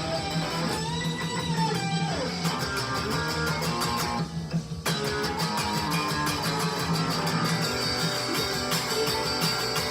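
Guitar solo on the chime tune, with bent notes over a steady low note, a short break about four seconds in, then the playing resumes.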